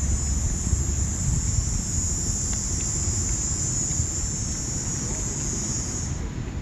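Wind buffeting the microphone with a low rumble, under a steady high-pitched insect drone that stops about six seconds in.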